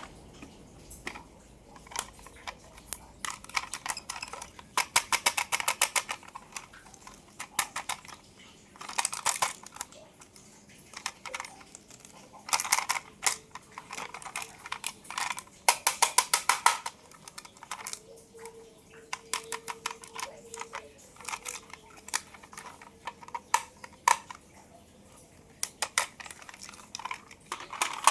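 Small hard plastic and die-cast toy cars handled and tapped, with scattered clicks and several bursts of rapid clicking.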